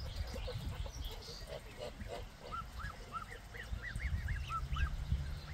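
Goslings peeping in a quick run of short, rising-and-falling whistled calls, thickest in the second half, with a few lower calls from the flock, over a low rumble.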